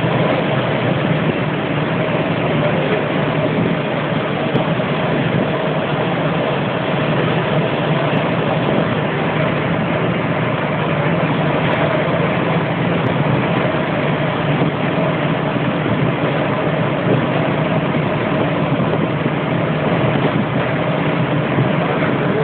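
Soft-drink bottling line machinery running: a steady, loud mechanical din with a constant low hum underneath.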